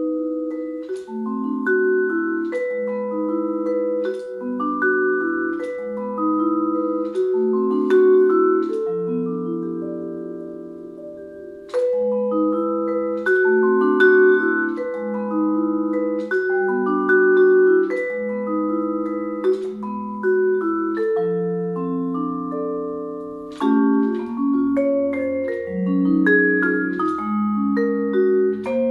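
Solo vibraphone played with four mallets: struck chords and a melody line, the metal bars ringing on after each stroke. About nine seconds in, a low chord is left to ring and fade, and a new phrase begins about twelve seconds in.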